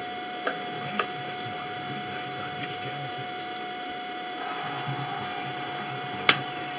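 Steady electrical hum and hiss with a faint high whine. A few sharp clicks come from eating at the table, two small ones in the first second and a loud one just over six seconds in.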